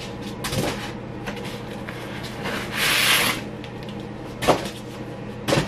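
Cardboard packaging scraping and rustling as packing pieces are pulled out of a furniture box, with a longer scrape about three seconds in and a few light knocks.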